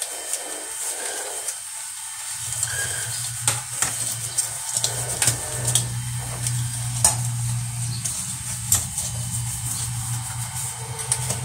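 Water running and splashing in a stainless steel sink while a plastic colander is scrubbed and rinsed, with scattered light clicks and knocks of the plastic against the sink. A steady low hum starts about two seconds in.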